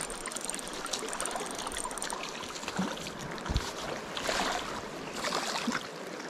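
Swift river current rushing and rippling close by, steady throughout, with a few brief splashy surges about four and five seconds in as a hooked rainbow trout is played to the surface.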